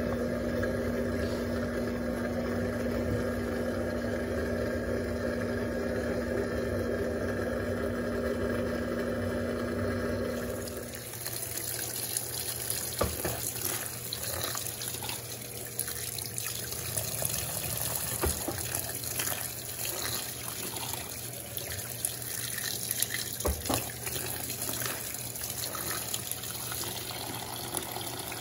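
Electrolux Turbo Compacta washing machine's motor running with a steady hum, cutting off suddenly about eleven seconds in; then water running into the tub with a steady hiss and a few scattered knocks and splashes.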